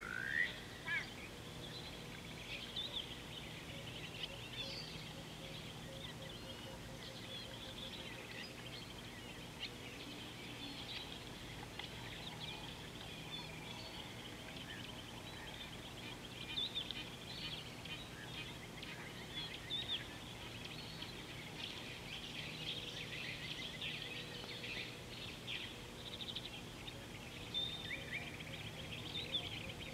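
Many birds chirping and trilling together in a continuous chorus, over a faint low steady hum.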